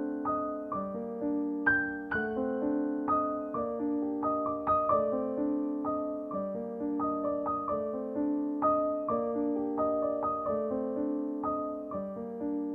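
Solo piano music: a melody of single struck notes over lower held chords, each note dying away after it is played.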